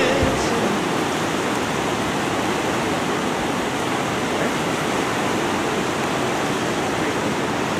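Steady rushing of a river in flood, high, fast water running over its banks.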